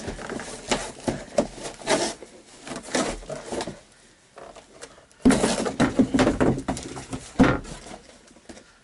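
Cardboard scraping, rustling and knocking as a cardboard packing tray is slid out of a long guitar shipping box, with a louder stretch of scraping from about five seconds in to seven and a half.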